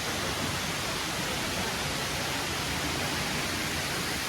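Steady rush of water falling at a waterfall: an even, unbroken hiss with no rhythm or breaks.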